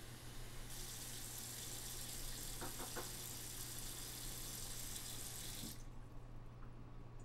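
Water running from a tap into a sink: an even hiss that starts just under a second in and is shut off suddenly a little before the end, with a few light clatters midway, over a steady low hum.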